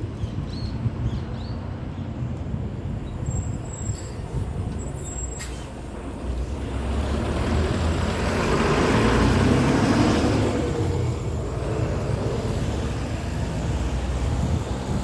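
A road vehicle passing by, building to its loudest about nine to ten seconds in and then fading, over a steady low rumble.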